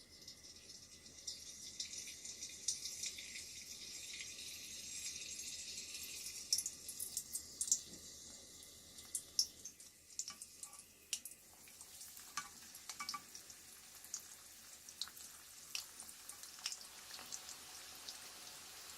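Hot oil sizzling in a pan. The hiss builds over the first few seconds, then thins out into scattered crackles and pops, with a few louder pops around the middle.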